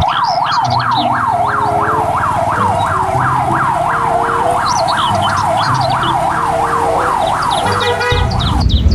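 Electronic yelp siren cycling fast, each wail sweeping up and dropping back about three times a second, with short higher chirps and brief steady tones alongside; it cuts off shortly before the end.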